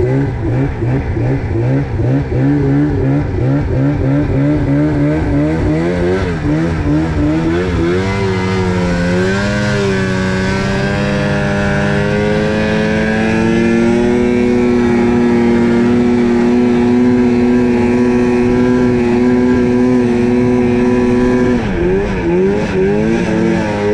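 Snowmobile engine running under throttle through snow. Its pitch wavers quickly up and down for the first six seconds, climbs, and then holds steady at a higher note through the middle. It drops off briefly near the end.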